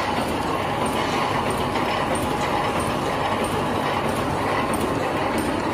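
Automatic welded wire mesh welding machine running: a steady, dense mechanical clatter with faint, evenly spaced ticks.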